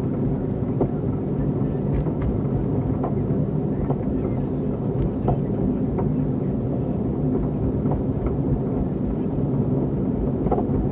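2001 Cadillac Seville on the move: a steady drone of road and running gear, with sharp clunks knocking irregularly, roughly once a second, while driving straight. The driver takes the grinding 'woo' for worn wheel bearings; the clunk's cause is unknown.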